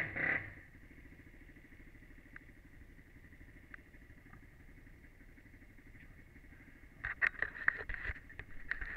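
Honda 400EX quad's single-cylinder four-stroke engine falls from a rev to a quiet, even idle about half a second in. Near the end, a run of sharp knocks and clatter.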